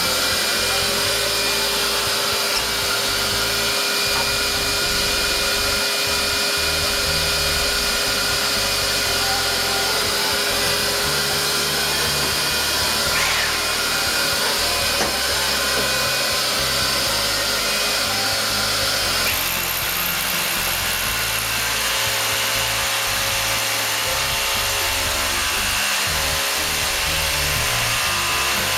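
Dust-extraction vacuum running steadily while a rotary hammer drills into a reinforced-concrete ceiling. The sound shifts about two-thirds of the way through.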